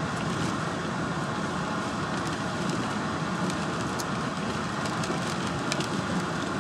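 Steady running noise of a pickup truck heard from inside the cab as it drives slowly along a park road, with scattered light ticks over it.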